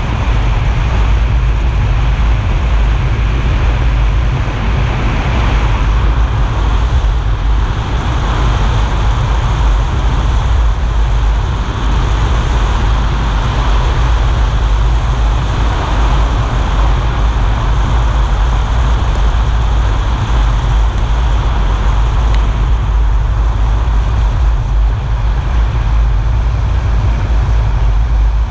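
A car driving steadily on a wet road: constant tyre and wind noise with a heavy low rumble.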